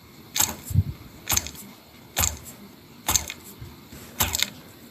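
Damaged brushless motor of a Hubsan H501S drone giving short scratchy, grinding rattles about once a second, the sound of loose bits and pieces inside the motor.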